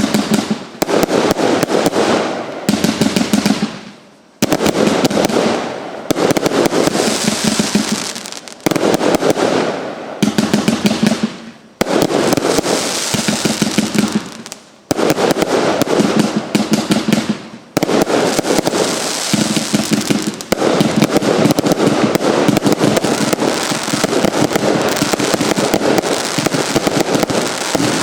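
Big Rhino consumer firework going off in rapid runs of sharp crackling bangs, volley after volley with short pauses between, turning into one unbroken barrage about two-thirds of the way through.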